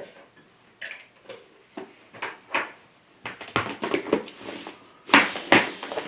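A clear plastic storage box of embroidery floss being handled: a string of light plastic knocks and rustles, then two loud clacks near the end as the lid is pressed shut.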